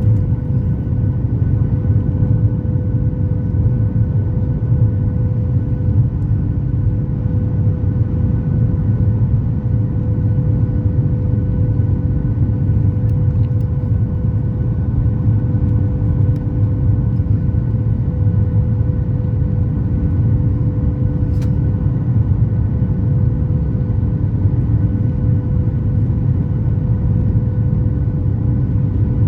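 Steady cabin noise inside a Boeing 737 MAX 8 airliner: an even, low rumble of engines and airflow with a faint constant hum over it.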